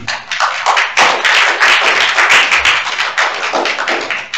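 Small audience applauding with hand claps, thinning out near the end.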